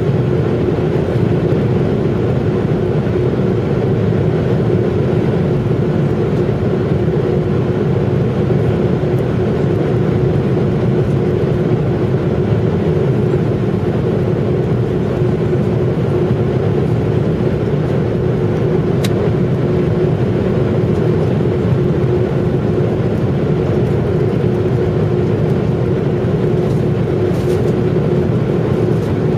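Jet airliner cabin noise during the climb after takeoff: a steady engine and airflow roar with a constant droning hum.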